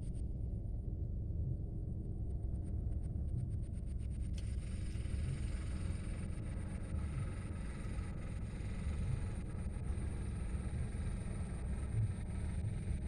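Steady low wind rumble buffeting the microphone in strong wind over open water.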